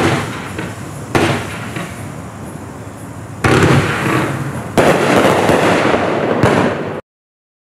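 Black Cat Color War 48-shot fireworks cake firing: five sharp shots and bursts about one to two seconds apart, with a dense crackle filling the gaps after the later ones. The sound cuts off abruptly about seven seconds in.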